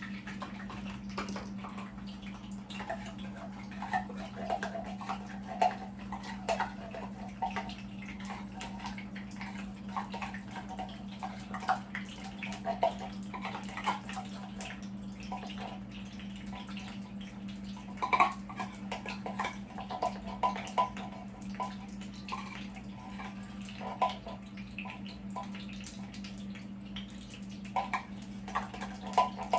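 Sweetened condensed milk hitting hot olive oil in a skillet and cooking, bubbling and crackling with irregular small pops, over a steady low hum.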